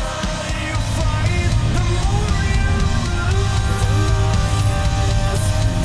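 Loud hard-rock music with electric guitar and drums, filling out about a second in.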